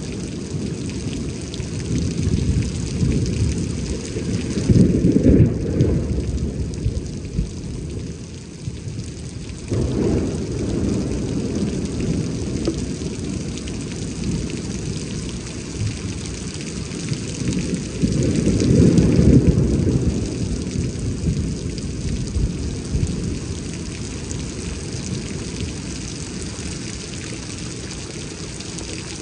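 Thunderstorm: steady rain hissing under rolling low rumbles of thunder that swell several times, the loudest about two-thirds of the way through.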